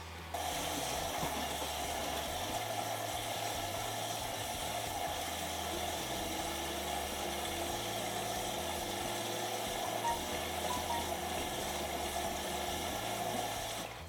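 Whirlpool AWO12963S front-loading washing machine taking in water at the start of a cotton wash, a steady rush of water into the drum as it turns the load. The sound starts and stops abruptly.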